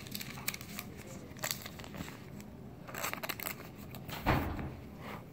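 Clear plastic card sleeve crinkling and clicking as a trading card is handled and slid into it, with a louder soft thump a little after four seconds in.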